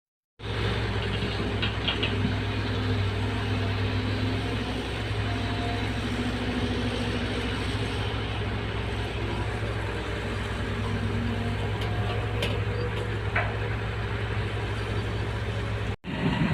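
Caterpillar 320 hydraulic excavator's diesel engine running steadily with a deep hum, a fainter higher tone coming and going over it. It cuts in sharply about half a second in and breaks off briefly near the end.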